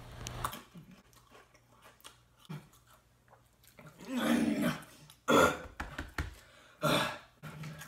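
A man's throaty vocal noise about four seconds in, then several short sharp exhales and grunts: pained reactions to the burning heat of ghost pepper chips.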